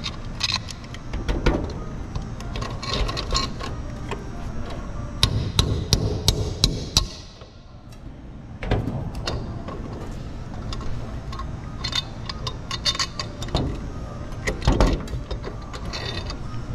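Scattered metal clinks and knocks as steel brackets and their bolts are fitted against a sheet-metal sign, with hand tools striking and turning the hardware. The sounds come irregularly, bunched together at times, over a steady low background rumble.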